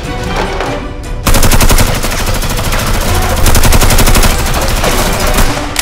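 Rapid automatic fire from a motorised Nerf blaster: a fast, even rattle of shots that breaks off briefly about a second in, then runs unbroken for about four seconds. Background music plays underneath.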